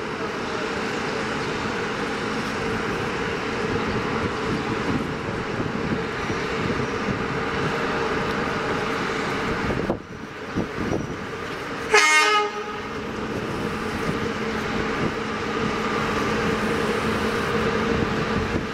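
Electric locomotive hauling a train slowly through the station, its machinery giving a steady hum over the rolling noise. About twelve seconds in, the train horn gives one short toot.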